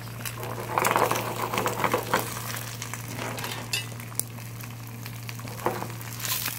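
Eggs sizzling in oil in a small frying pan over a gas burner, with a few scrapes and clicks as the pan is shaken and tossed to flip the eggs over easy; the loudest handling comes about a second in and again near the end.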